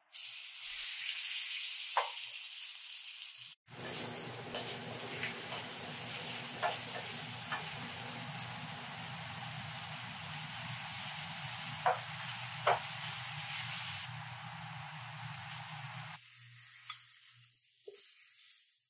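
Cubed lamb hitting a hot stainless steel skillet and sizzling loudly as it is stir-fried, with a few short clicks of a wooden spatula against the pan. A low steady hum runs under it after a few seconds, and the sizzle dies down near the end.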